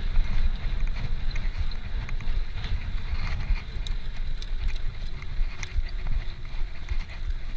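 Wind buffeting the microphone of a camera on a moving bicycle: a heavy, gusting low rumble with scattered small clicks and rattles from the ride.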